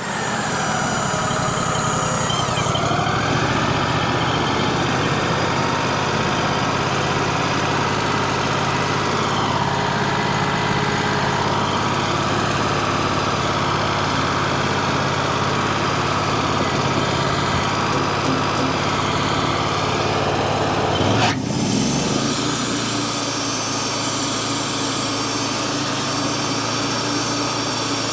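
Wood-Mizer LT35HD sawmill running steadily, its engine driving the band saw. A little after twenty seconds the sound changes abruptly, with a short rising sweep, and settles into a different steady engine note.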